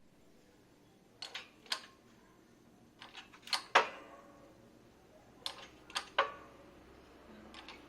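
Irregular sharp knocks and clacks of hard objects being handled, about nine in all, coming in small groups of two or three.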